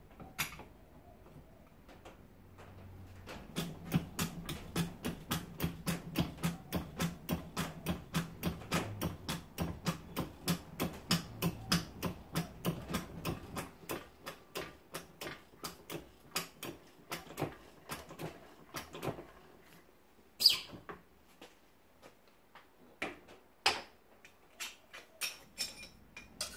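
Hydraulic shop press being pumped to bring its ram down, a quick regular clicking of about three strokes a second, with a steady low hum through the first half. Then one sharp loud crack, the loudest sound, followed by a few light clinks of steel plates being handled.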